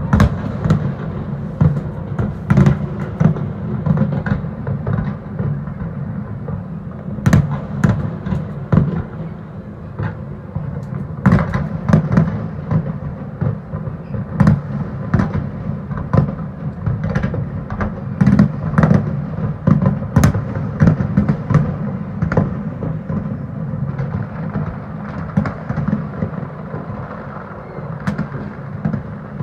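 Fireworks display shells bursting in rapid, irregular succession: many sharp bangs, several a second, over a constant low rumble of echoing reports.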